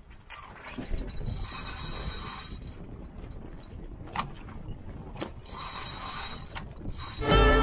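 Sailboat under way upwind: a steady rush of wind and water along the hull, with a few sharp clicks and knocks from the rigging. Music comes in near the end.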